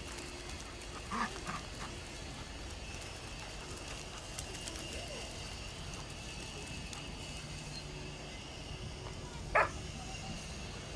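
Dogs barking in short single barks: two quick ones about a second in and one louder bark near the end, over steady outdoor background noise.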